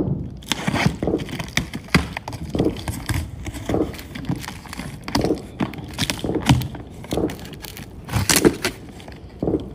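Large cardboard carton being opened by hand: a string of irregular scrapes, rips and knocks as its top is worked loose and the flaps are pulled back.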